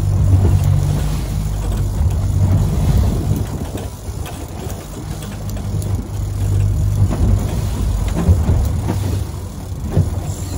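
A fishing boat's outboard engines running steadily with a low hum.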